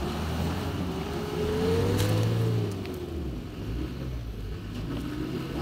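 Thaco Ollin light truck's diesel engine revving hard, climbing to a peak about two seconds in and then easing off, while its wheel spins in soft sand and throws up soil: the truck is stuck and getting no grip.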